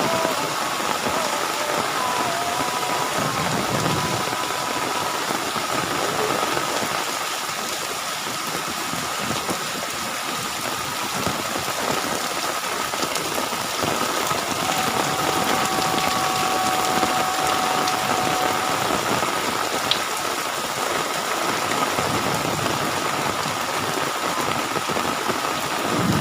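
Heavy rain pouring steadily in a thunderstorm downpour, with a thin steady high hum underneath.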